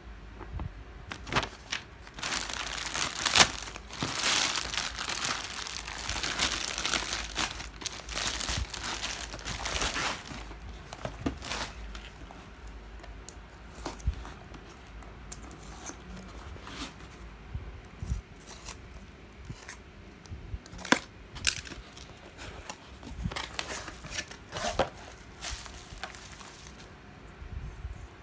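Paper and plastic packaging crinkling and tearing as a cardboard parcel is unpacked: dense rustling for the first ten seconds or so, then a utility knife slitting packing tape and scattered crackles and clicks as the box is opened and bubble wrap handled.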